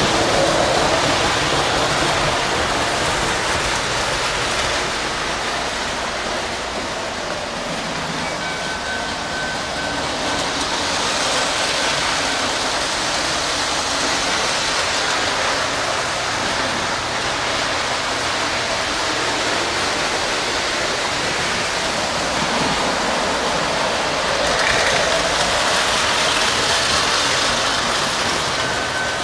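O gauge electric model trains running on three-rail track: a steady rolling rumble and whirr of wheels and motors. It grows a little louder near the end as a train passes close.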